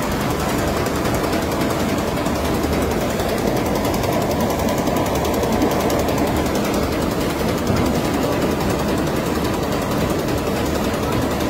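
Polly M370 label finishing machine running at about 60 metres a minute: a steady, dense mechanical clatter from its rollers and die-cutting unit.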